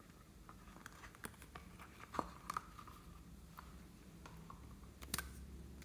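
Faint handling sounds: scattered small clicks and taps as hands handle a soft squishy toy and a plastic lipstick tube, with a sharper click near the end.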